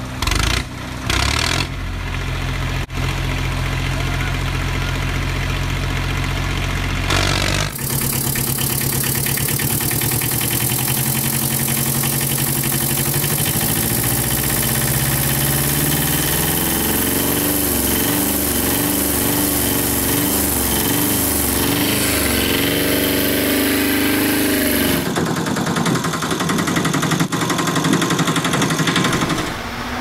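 Recorded vehicle engine sounds laid over toy vehicles. First a steady idling engine; about eight seconds in it switches to a different engine with a strong hiss, whose pitch rises and falls. It changes again to another engine a few seconds before the end.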